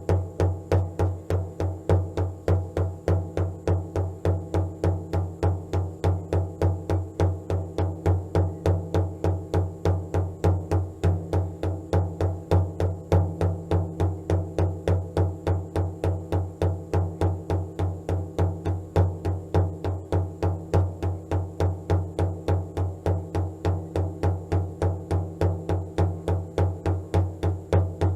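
Steady, even drumbeat, about three beats a second, with a deep tone under a low sustained drone.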